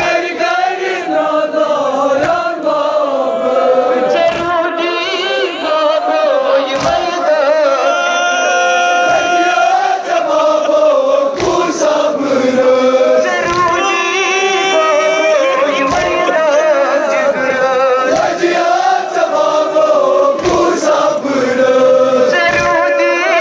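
Kashmiri noha, a Shia mourning lament, chanted by a group of voices in a slow rising and falling melody. A short thud falls roughly every two seconds, keeping a regular beat under the chant.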